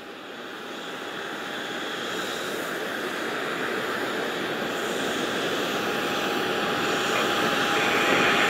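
Boeing 747-400ERF freighter on approach, the noise of its four jet engines growing steadily louder as it nears. A steady whine runs through the roar, and a second, higher whine joins near the end.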